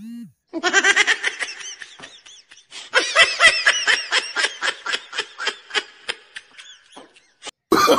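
A person laughing hard in quick, high-pitched bursts: a short run of laughter about half a second in, then a longer run from about three seconds that trails off.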